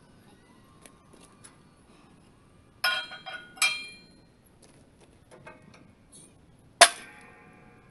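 Steel clanking at a hydraulic shop press: a few ringing metal clanks about three seconds in, then one sharp, loud metallic bang with a ringing tail near the end.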